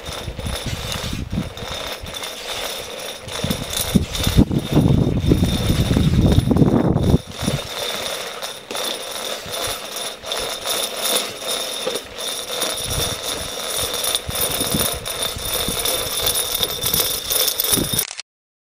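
Manual fire-hose reel being turned by hand as a flat fire hose winds onto it, giving a continuous run of fast metallic clicks and rattles. The sound cuts off just before the end.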